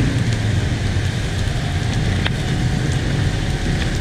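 Mutton karahi cooking in a wok over a high gas flame: steady sizzling over a low burner roar, with a sharp metal clink about halfway through.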